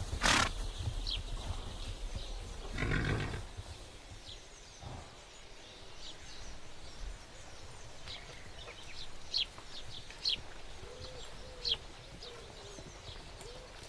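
The last hoofbeats of galloping horses right at the start, then a horse's brief whinny about three seconds in. After that, outdoor ambience with small birds chirping, and a dove cooing repeatedly from about eleven seconds.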